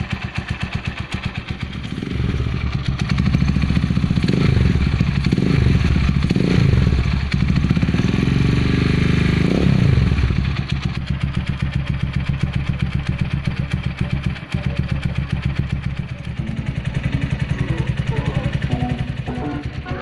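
Gamma 200 motorcycle with an Akrapovic carbon fiber muffler, silencer and dB killer fitted, idling, then revved in several blips from about 2 to 10 seconds in before settling back to idle. Music begins faintly near the end.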